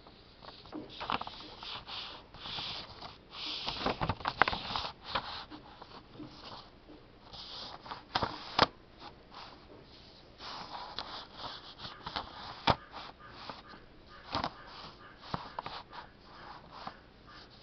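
Hand and ballpoint pen working on a sheet of drawing paper: short rustling scrapes of paper and pen, with several sharp taps and knocks. The loudest taps come around four seconds in and again a little past the middle.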